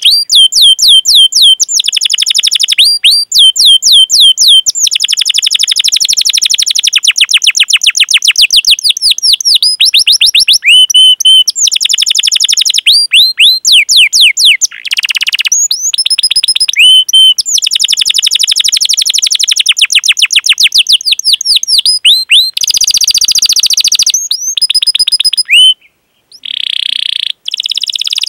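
Domestic canary singing loudly and close up: long rolling trills made of fast-repeated chirp notes, many to the second, in runs of one to a few seconds with short breaks between them and a brief silence near the end.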